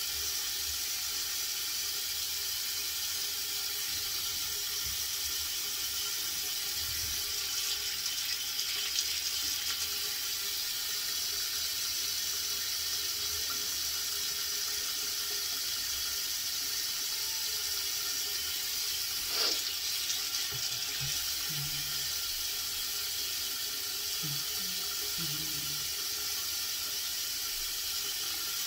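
Tap water running steadily into a sink, an even hiss, with one brief click about two-thirds of the way through.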